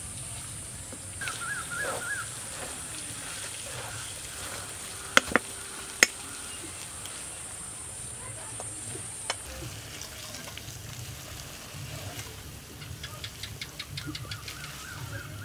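Metal cookware clinking as a wok of cooked chicken filling is taken off a wood fire, with three sharp clinks about five to six seconds in. A steady high insect buzz cuts off about nine seconds in. Near the end comes light tapping and scraping as the filling is scraped from the wok into a steel bowl.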